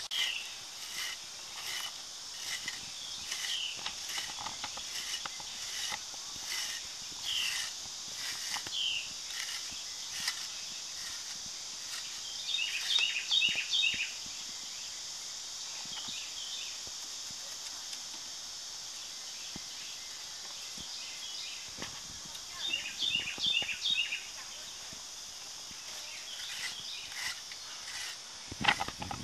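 Outdoor ambience: a steady high-pitched insect drone, with short chirps repeating about once a second and, twice, a quick run of four chirps. Faint scattered taps and scrapes sound underneath.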